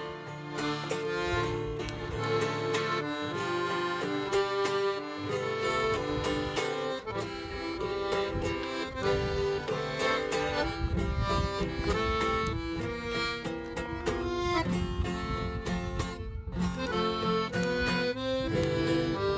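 Accordion (sanfona) playing a country 'moda' melody over held chords, with acoustic guitar (violão) accompaniment. This is the instrumental introduction before the singing begins.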